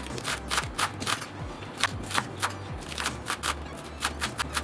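Kitchen knife chopping scallions on a cutting board: quick, irregular cuts, about three or four a second, with short pauses.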